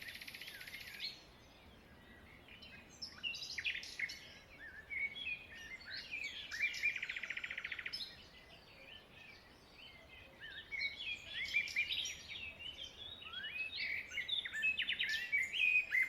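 Several birds chirping and calling, with two short buzzy trills: one at the very start and one about halfway through.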